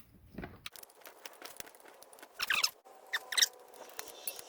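Metal parts of a spring-loaded electric PTO blade clutch being worked loose in a vise: scattered sharp metal clicks and knocks, with two short, high-pitched metallic scrapes about two and a half and three and a half seconds in.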